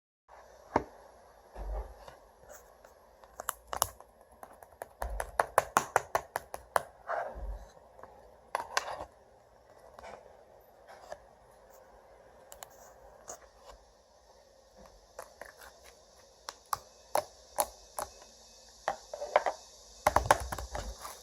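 Hands working slime: a run of sticky clicks, pops and squishes, coming thick and fast around five to seven seconds in and again near the end.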